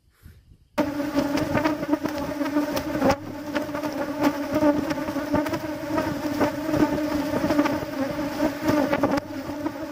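A swarm of aggressive ground-nesting bees buzzing loudly and steadily close by, stirred up by the digging out of their underground nest, starting suddenly about a second in. Scattered sharp clicks sound over the buzz.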